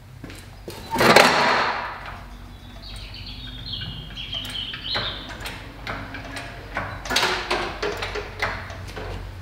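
Hydraulic engine crane being worked by hand to hoist a car engine: repeated clanks and knocks with metal squeaks from the crane and its lifting chain, a louder clatter about a second in, over a steady low hum.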